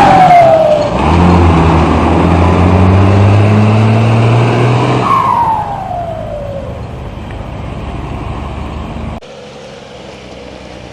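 Ford truck's diesel engine, its turbo intake fitted with a comb, running hard under throttle. A loud falling turbo whistle comes at the very start and again about five seconds in, as the throttle is lifted. The engine then fades, and the sound drops off suddenly about nine seconds in.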